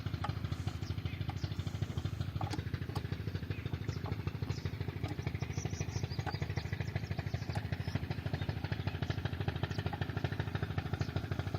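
Petter stationary diesel engine running steadily at a tube well, a fast, even beat of firing pulses with no change in speed.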